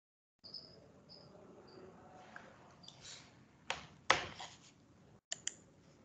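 Faint room sound with three short high chirps in the first two seconds, then several computer mouse clicks, two about four seconds in and a quick pair near the end.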